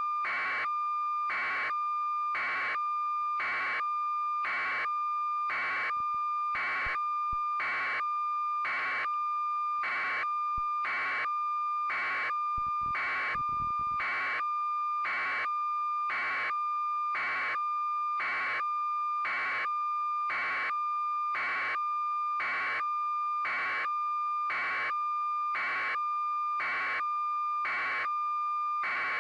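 Continuous high electronic tone with a steady pulse a little more than once a second, unchanging throughout, like a test or feed signal on the audio track.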